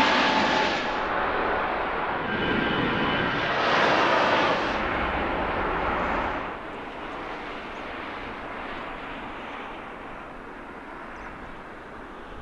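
Jet airliner passing close by: a loud rush of engine noise with thin whining tones, swelling twice in the first five seconds, then dropping away after about six seconds to a distant rumble.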